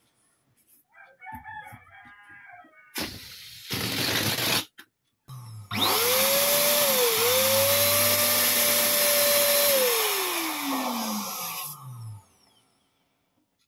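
Electric balloon pump inflating a large latex balloon: it runs for about six seconds, its motor pitch rising as it spins up and falling away as it winds down. A short burst from the pump and some rubbery squeaks from handling a balloon come before it.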